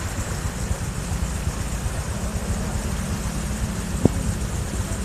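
Car engine running low and steady in deep floodwater, with a steady hum setting in about two seconds in. There is one sharp click about four seconds in.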